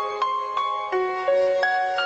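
Background music: a slow melody played on a bell-like mallet instrument, a new note about every half second.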